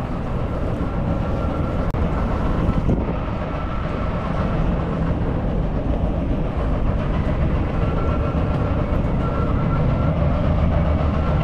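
Steady low rumble echoing through an underground metro station. The higher hiss drops out suddenly about three seconds in.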